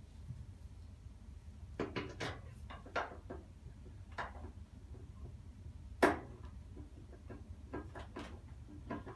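Irregular clicks and knocks of hand work at a front-load washer's lower front panel as its screws are driven back in; the sharpest knock comes about six seconds in. A steady low hum runs underneath.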